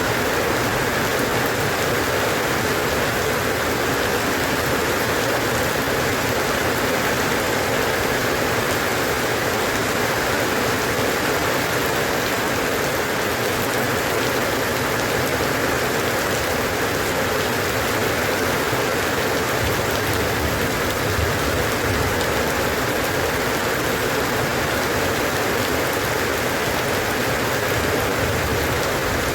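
Steady rain falling, a dense, even hiss with no breaks or thunder.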